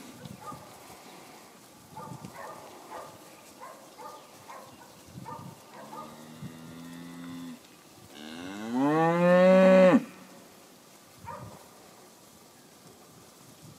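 Heifers mooing: a quieter, level moo about six seconds in, then a loud moo about two seconds long that rises in pitch as it starts.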